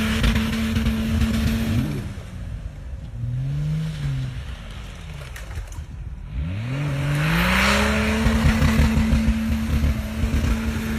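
Off-road vehicle's engine running at high, steady revs, dropping off about two seconds in, giving a short rev, then winding back up to the same high revs with a burst of hiss on the way.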